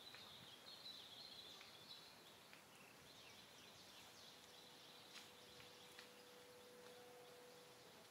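Quiet outdoor ambience with faint, high, short bird chirps, twittering in the first two seconds and again about three to five seconds in, plus a few soft clicks and a thin steady hum in the second half.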